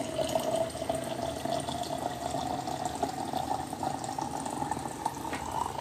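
Hot water running from an electric hot-water dispenser's spout into a glass jar, a steady pouring with a ringing filling tone that rises in pitch near the end as the jar fills, then stops sharply.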